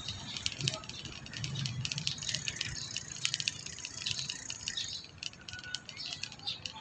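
Light rattling and many quick clicks over a low rumble, from a slow-moving bike rolling along a concrete street; it eases off about five seconds in.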